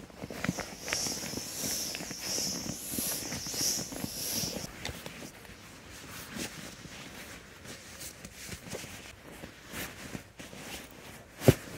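Nylon sleeping bag rustling and crinkling as it is handled and stuffed, with many small scuffs and rustles. A high hiss runs for about the first five seconds and then stops, and a single sharp knock near the end is the loudest sound.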